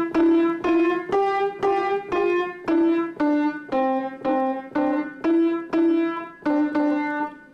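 Piano playing a simple single-note melody, one note at a time at about two notes a second, each struck sharply and fading before the next.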